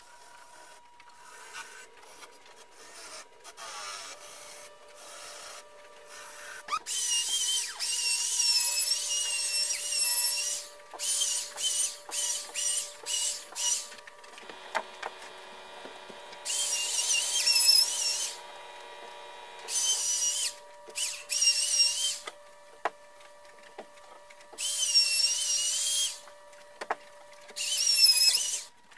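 Handheld power tool working MDF in repeated bursts with a wavering high whine: longer runs of one to three seconds, and a quick string of short bursts in the middle. A faint steady hum sits underneath between bursts.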